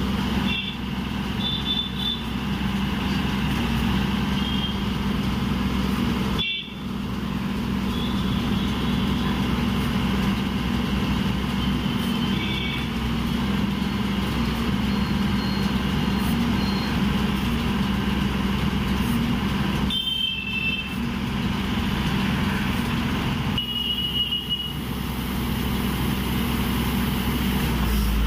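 Horizontal drilling rig's engine running steadily while it pushes the drill rod into the ground, with road traffic passing and a few short horn toots.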